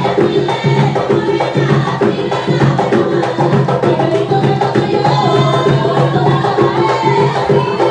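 Panamanian tamborito music: hand drums beating a fast, dense rhythm under a sung melody.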